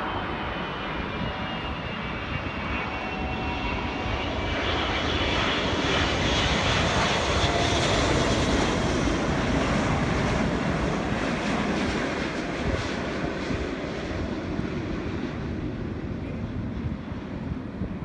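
Engines of a large airplane passing by: a steady rushing roar that swells to its loudest about halfway through and then slowly fades, with a faint high whine that falls in pitch early on.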